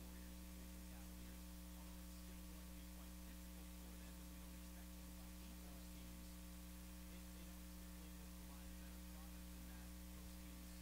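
Steady low electrical mains hum with faint hiss, nothing else sounding.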